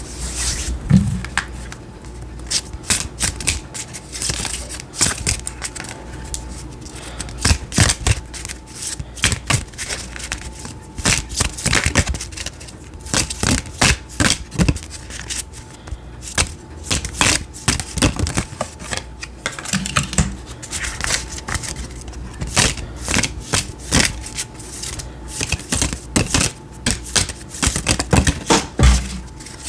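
Oracle cards being shuffled and handled, with many irregular crisp clicks and taps.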